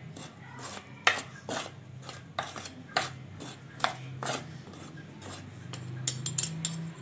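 Metal fork and spoon stirring dry flour in a ceramic dish, with irregular scrapes and clinks of the metal against the dish.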